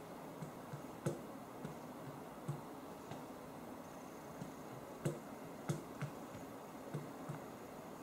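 Fingertips tapping the touchscreens of a row of ZenFone 2 Laser smartphones: about a dozen light, irregular taps over a steady hiss.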